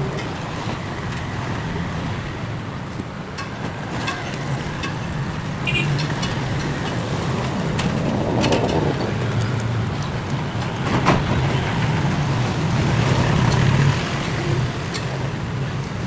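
Steady low background rumble, with scattered light clicks and taps as the ceiling fan's wires are worked through a pipe.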